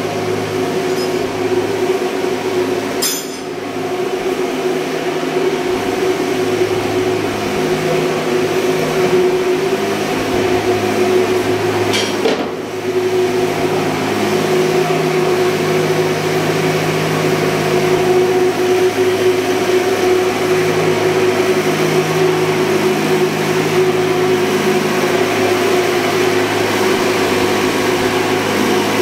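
Ship engine-room machinery running: a loud, steady mechanical drone with one constant hum-like tone and a lower throb that swells and fades.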